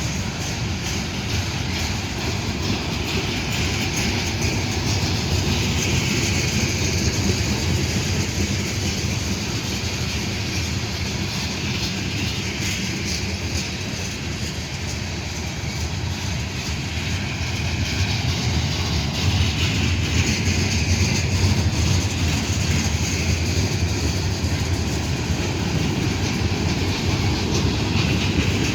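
Freight train rolling past, a steady rumble with wheel and rail noise that grows a little louder about two-thirds of the way through.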